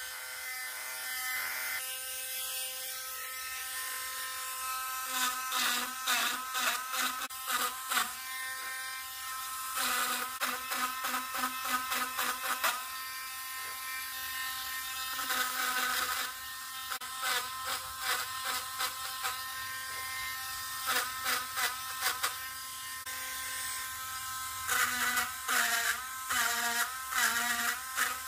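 Small hand-held rotary tool running at speed, its fine bit engraving into an oak board, a high buzzing whine. The pitch wavers up and down in short spells as the bit bites into the wood and eases off.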